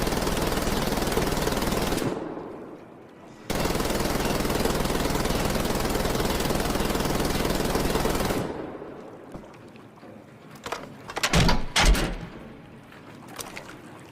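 MG-46 machine gun firing two long continuous bursts, the first ending about two seconds in and the second running about five seconds, each trailing off in an echo. A few sharp, loud clatters follow near the end.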